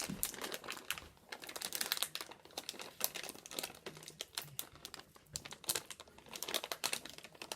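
A food packet being handled and crinkled, with rapid, irregular crackles.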